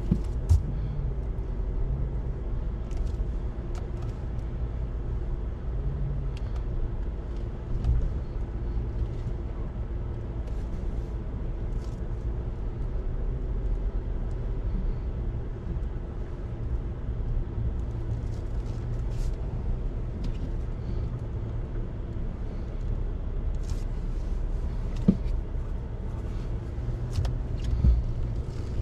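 Pickup truck engines running at low speed as the trucks crawl through a flooded, overgrown trail. A steady low rumble, with a few sharp knocks scattered through it.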